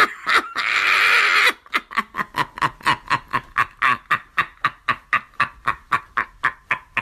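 A woman's voice: a long scream for about a second and a half, then a fast, even run of short yelps, about five a second.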